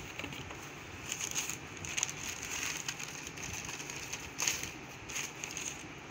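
Printed wrapping around a pair of shoes rustling and crinkling in irregular bursts as it is pulled back inside a cardboard shoe box, with the loudest crackles about two seconds in and again near four and a half seconds.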